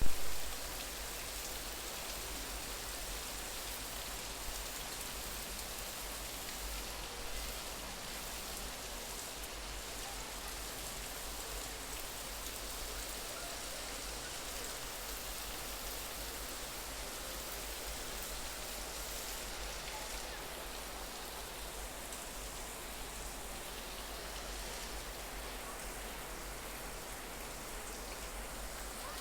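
Steady rain falling, an even hiss of many drops, with a short loud bump right at the start.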